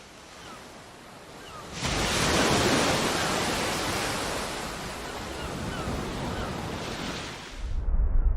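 Rushing wind noise: faint hiss at first, swelling sharply about two seconds in to a loud, even rush that eases slowly. Near the end it gives way to a louder, muffled low rumble with the high end cut off.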